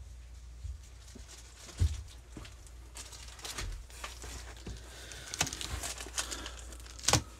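Rustling and crinkling of baseball cards and their pack wrappers being handled, with scattered small clicks. Two sharp knocks, likely against the table, stand out: one about two seconds in and the loudest near the end.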